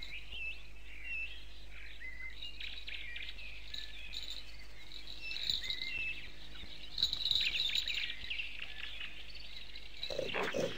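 Soundtrack forest ambience of small birds chirping and twittering, with a louder flurry of calls about seven seconds in. Near the end, a series of lower animal noises begins.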